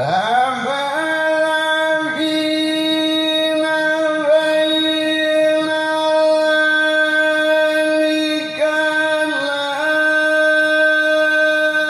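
Male qari's voice in melodic Qur'anic recitation (tilawah), sliding up into one high note and holding it on a single long breath, with small ornamental dips in pitch.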